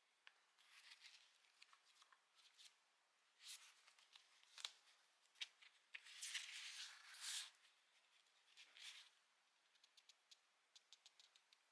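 Faint rustling of a paperback book's paper pages as they are handled and turned, with a quick run of small ticks near the end as pages are flicked.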